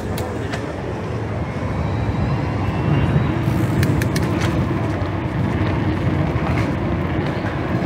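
Outdoor street ambience dominated by a steady low rumble of road traffic, which swells a little about three seconds in, with a few short clicks on top.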